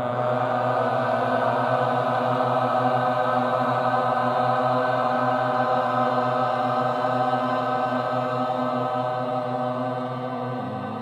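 A man's voice chanting the mantra 'Ram' as one long, drawn-out tone, held steady and fading slightly near the end.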